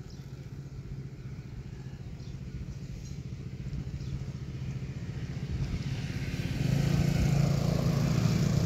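A small engine running steadily with a low hum, getting clearly louder about two-thirds of the way through.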